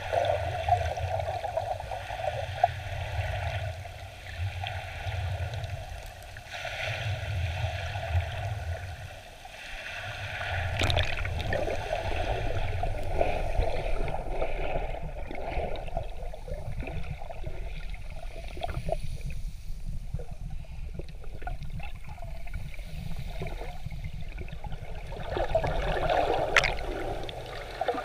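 Shallow sea water heard from underwater: a muffled sloshing and bubbling with a low rumble, strongest in the first half, and a couple of sharp clicks.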